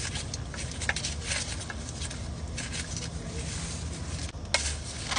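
Hand-handling noises: a run of short rubbing and scraping sounds with a few light clicks, over a steady low hum.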